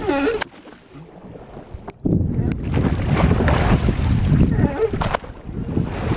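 Wind buffeting the microphone on an ocean rowing boat: a loud low rumble that sets in about two seconds in, over the wash of open water. A brief voice sounds right at the start.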